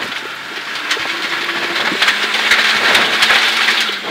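Rally car's engine running while its tyres run over a gravel forest road, heard from inside the cabin. The road noise grows louder about two seconds in.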